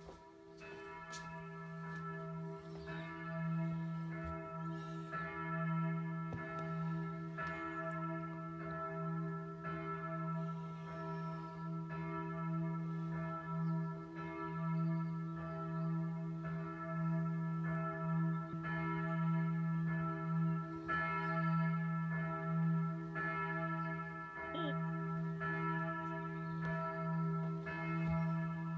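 Church bells pealing: a steady low ringing hum under fresh strikes that come about once a second.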